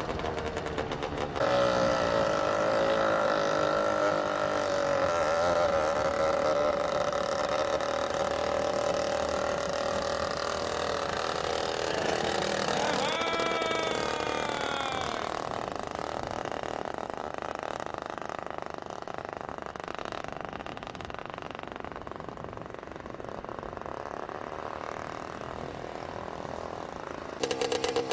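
Homemade petrol-engined rail vehicle running, its small engine giving a fast steady pulse. For most of the time a steady whining tone is heard, with a few rising sweeping tones about halfway, and the engine pulse returns near the end.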